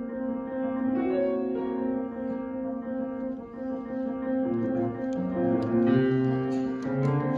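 Solo grand piano played live, many notes ringing together over a steady middle figure, with lower bass notes entering about halfway through.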